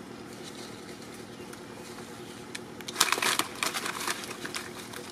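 Dry leaves crackling and rustling for about a second and a half, starting about three seconds in, as a baby macaque moves on the leaf litter. A steady low hum sits underneath.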